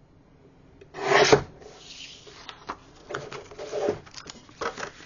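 Sliding-blade paper trimmer making one quick cut through patterned scrapbook paper about a second in. Then the paper rustles and slides over the trimmer's base as it is handled.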